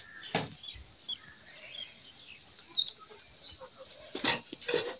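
A single short bird chirp about three seconds in, over a faint steady hiss, with a few soft knocks around it.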